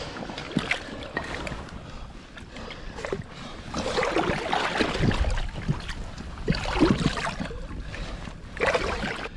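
Shallow seawater splashing and sloshing in a rock pool, stirred by a wader's legs and hands working a lobster hook, with several louder splashes through the middle and near the end.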